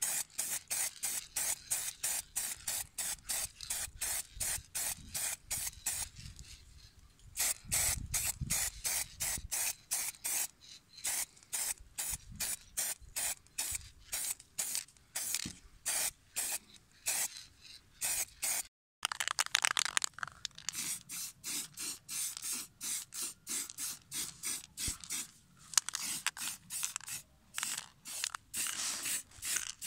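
Aerosol spray-paint can sprayed in short rapid bursts, about three a second, with a brief pause about six seconds in and one longer unbroken spray of about a second just after the middle.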